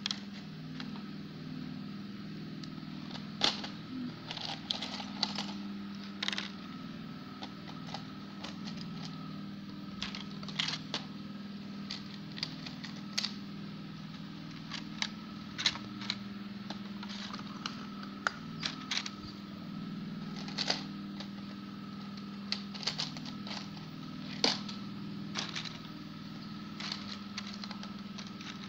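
Small plastic toys clicking and clattering as they are picked out of a plastic storage box and set into a clear plastic egg tray: irregular sharp taps, sometimes several in quick succession, over a steady low hum.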